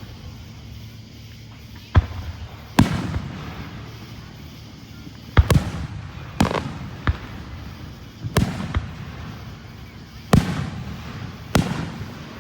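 Fireworks shells bursting overhead: about nine sharp booms at irregular intervals, some in quick pairs, each trailing off in a rumbling echo.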